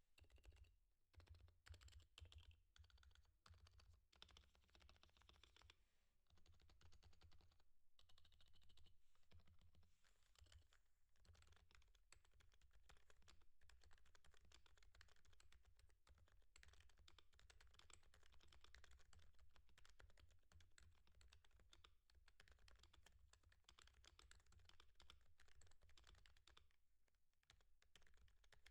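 Continuous typing on a Topre Realforce R3HD21 keyboard with electrostatic-capacitive rubber-dome switches: keystrokes in quick succession, broken by a few short pauses.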